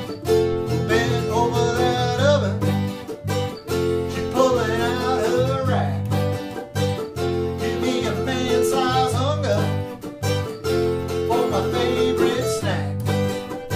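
Acoustic guitars playing a country-style tune: steady rhythmic strummed chords with a wavering, bending melody line over them.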